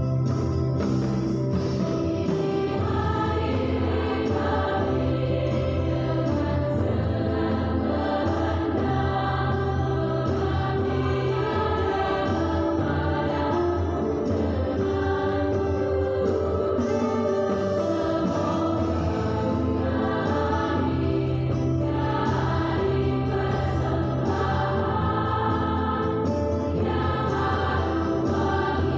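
Background music: a choir singing church-style music over long held bass notes.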